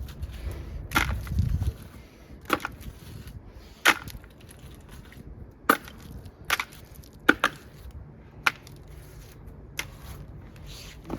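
Sharp clicks and knocks at uneven intervals, about ten of them, as bits of scrap and debris are picked off a magnet-fishing magnet and sorted.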